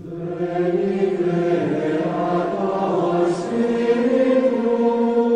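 Wordless choir singing a held chord, which moves to a new chord a little past halfway.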